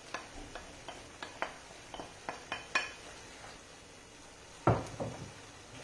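Cooked millet being tipped from a plate into a pan of sauce and stirred in with a wooden spoon: a quick run of light clicks and knocks of plate and spoon against the pan, then a heavier thud about four and a half seconds in, with faint sizzling under it.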